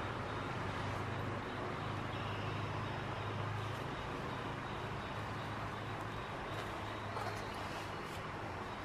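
Steady low hum under a constant background noise, with a few faint rustles near the end.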